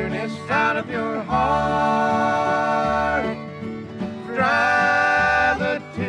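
Bluegrass band recording: two long held melody notes, each sliding into pitch, over steady string-band backing.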